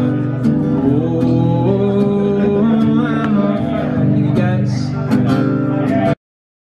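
Acoustic guitar strummed with a voice singing over it. The sound cuts out abruptly to silence about half a second before the end.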